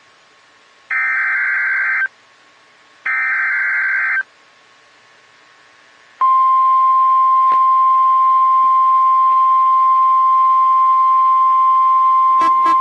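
NOAA Weather Radio emergency alert. The last two of the three SAME header data bursts come first, each a harsh, warbling digital screech about a second long with a second's gap between. After about two seconds of quiet, the steady single-pitch warning alarm tone starts about six seconds in and holds, with a couple of sharp clicks near the end. The alarm tone heralds a special marine warning.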